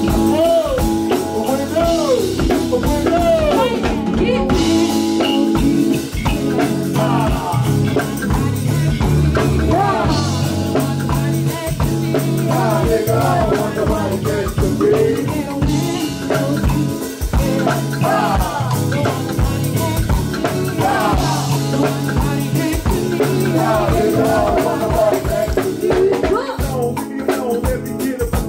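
Live band music: several vocalists singing into microphones over a drum kit, with a steady beat.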